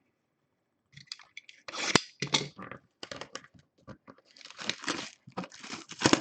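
Packaging of a sealed box of baseball cards being torn open: a rapid, irregular run of crinkling and tearing that starts about a second in.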